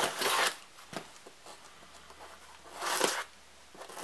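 Scissor blade drawn along the packing tape on a cardboard box, slitting it open: a scratchy scrape at the start and another about three seconds in, with light taps on the box between.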